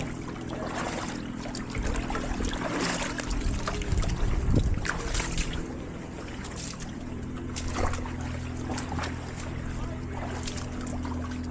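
A boat's engine running with a steady low hum, along with wind and water noise that swell for a few seconds near the middle, and scattered light clicks.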